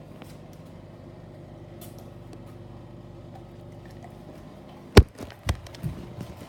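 A steady low hum, then a sharp knock about five seconds in, followed by a few lighter knocks.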